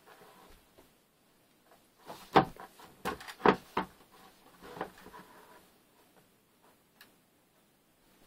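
Knocks and thumps from a green plastic tub as a person climbs into it: two loud knocks a little over two seconds in and about a second later, with several fainter bumps around them.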